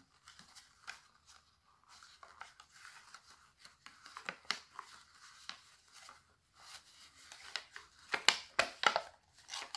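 Sock-loop fabric strips and the cut strips of a thin plastic cup rubbing and crinkling under the fingers as the loops are woven in and pressed down: faint scattered rustles and small clicks, busier and louder near the end.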